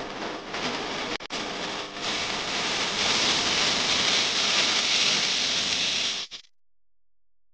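Steady rushing hiss with a couple of brief dips, cutting off suddenly about six seconds in.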